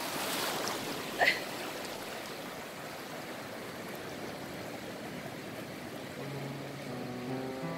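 Shallow surf washing steadily across a flat sandbar, with a short high chirp about a second in. Music with held notes fades in near the end.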